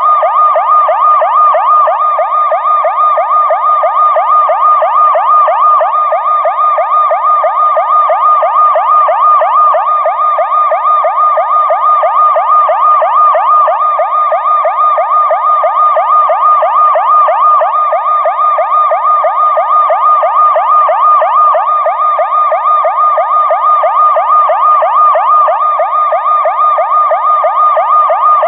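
Police siren played in reverse, its pitch sweeping up and down rapidly in a continuous, evenly repeating cycle at a steady, loud level.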